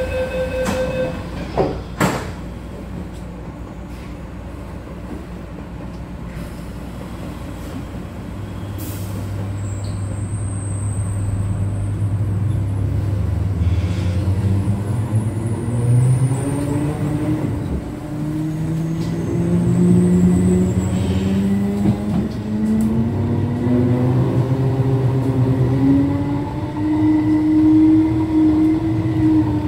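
The door-closing beeps end and the doors knock shut. Then the Metro-Cammell MLR electric train's nose-suspended traction motors start with a low hum and a whine that climbs in pitch, in several rising tones, as the train accelerates away.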